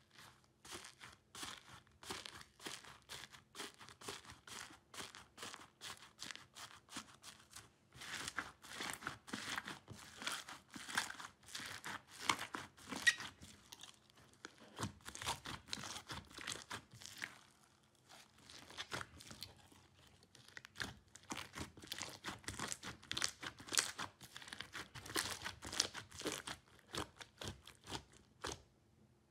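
Foam-bead slime (floam) being pressed, squeezed and stretched by hand, giving a dense, uneven run of small crackles and pops. The crackling comes in busier spells about a third of the way in and again near the end.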